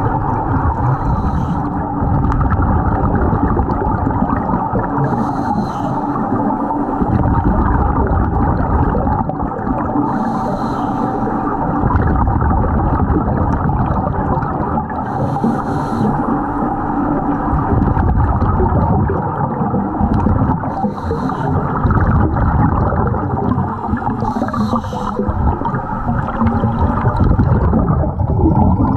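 Underwater sound in a swimming pool: a constant muffled rumble and hiss of water, with a short burst of scuba regulator exhaust bubbles about every five seconds as a diver breathes out.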